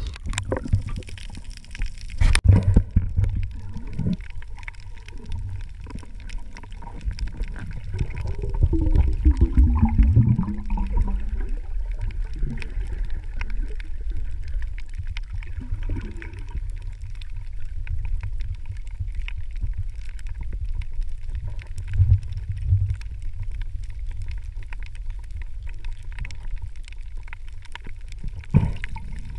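Underwater sound picked up by a camera below the surface: a steady low rumble of water moving against the housing, with a dense crackle of small clicks throughout. A splash right at the start, a sharp knock about two seconds in, and a wavering gurgle of bubbles from about eight to eleven seconds in.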